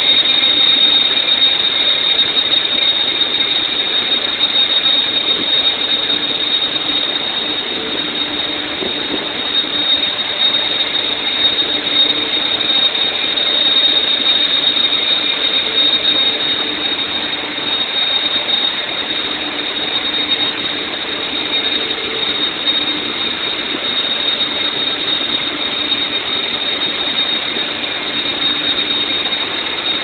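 Offshore platform machinery running: a loud, steady roar with a constant high whine over it.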